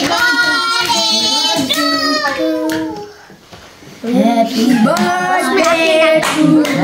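Children and adults singing a birthday song together, with hand claps throughout; the singing breaks off for about a second midway, then picks up again.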